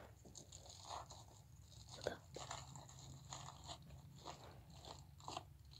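Faint, irregular small clicks and crunches, a sharper one about two seconds in and another near the end, over a low steady hum.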